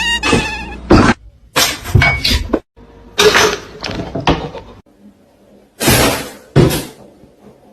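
A run of loud crashes and clattering impacts in four separate bursts, each lasting under a second.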